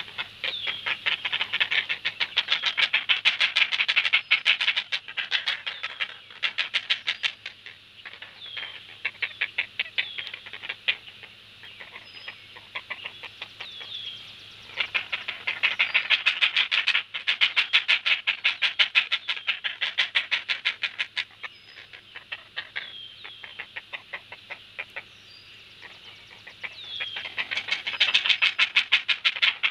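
Great blue heron chicks giving rapid, chattering begging calls at a feeding, many sharp notes a second. The chatter comes in three loud runs: at the start, in the middle and near the end, with quieter scattered calls between.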